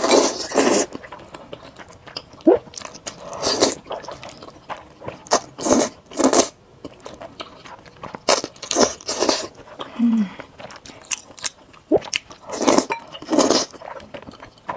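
Close-miked slurping and chewing of spicy Buldak fire noodles: short slurps that come in clusters of two or three, a few seconds apart.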